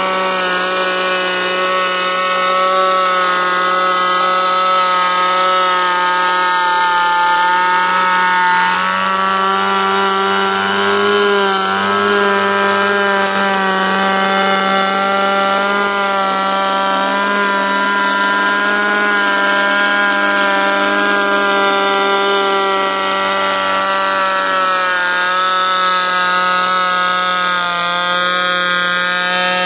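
Electric hand planer motor running steadily as boards are planed, its pitch wavering slightly a third of the way in and again near the end.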